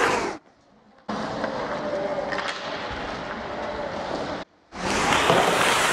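Ice hockey game noise in a rink: skates scraping the ice with occasional clacks, as a steady noisy wash. It drops out to near silence twice, for about half a second just after the start and briefly around four and a half seconds in.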